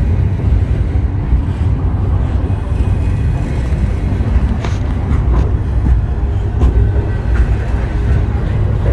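Norfolk Southern intermodal freight train's container well cars rolling past close by: a steady, loud low rumble of wheels on rail, with scattered metallic clicks and clanks around the middle and later on.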